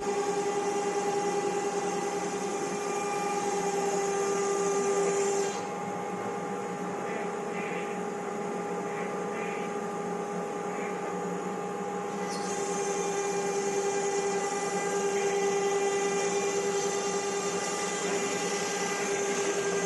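CNC router spindle running with a steady whine while cutting MDF speaker-box panels. The high cutting hiss drops away about five seconds in and comes back about twelve seconds in.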